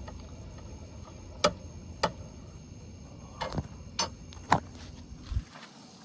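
Hand-cranked scissor jack being wound down to lower the car: about half a dozen sharp metallic clicks at irregular spacing, over a low rumble that stops near the end.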